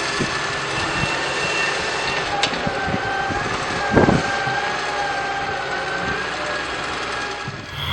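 Small electric motors of an RC toy excavator running with a steady, slightly wavering whine. There is a click about two and a half seconds in and a thump about four seconds in.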